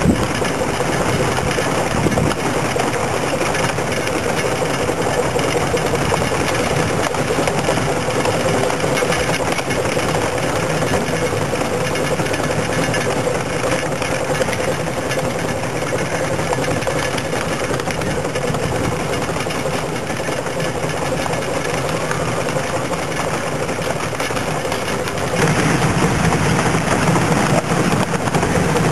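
A 7.25-inch gauge miniature railway train running along the track, heard from on board: steady running noise of the wheels on the rails, with a faint steady tone. About 25 seconds in it steps up louder and deeper.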